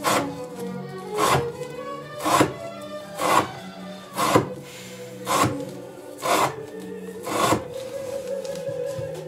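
Knife blade slicing through rope, one cut about every second, each a short rasping crunch, with a pause near the end. Background music plays underneath.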